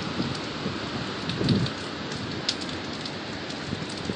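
Heavy hurricane rain and wind: a steady hiss of rain with scattered sharp drop ticks, and a louder low rush of wind about a second and a half in.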